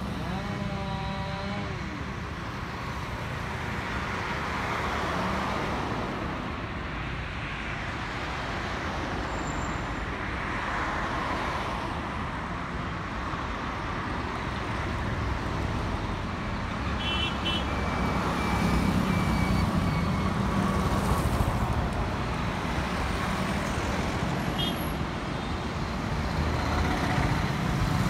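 Road traffic: cars and motorcycles passing one after another, engine and tyre noise swelling as each goes by, busier and louder in the second half. A few short high horn beeps sound about two-thirds of the way through and near the end.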